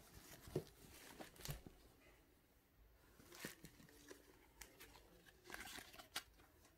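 Faint, scattered rustling and crinkling of a cotton T-shirt and the clear plastic bag under it being handled, a few short rustles with the loudest a little past five and a half seconds in.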